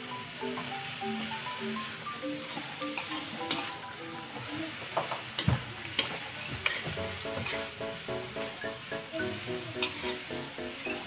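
Julienned vegetables sizzling in oil in a wok while a spatula stirs and tosses them, scraping and clicking against the pan several times.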